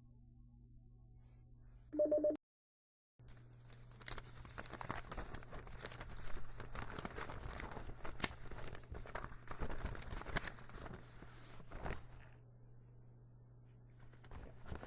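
A brief burst of telephone ringing about two seconds in, cut off into silence, followed by about nine seconds of irregular crinkling and crunching with many sharp crackles, which stops suddenly near the end.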